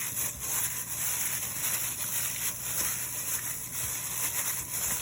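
Steady hiss and a low hum, with a few faint clicks.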